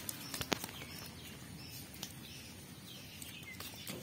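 Freshly netted fish flopping on wet concrete, giving a few sharp wet slaps near the start, with birds chirping faintly.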